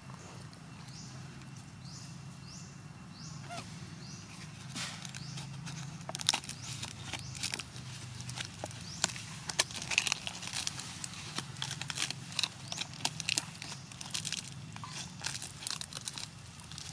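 Rustling and crackling: many small sharp clicks from about four seconds in, over a low steady hum. In the first three seconds a short rising chirp repeats about five times.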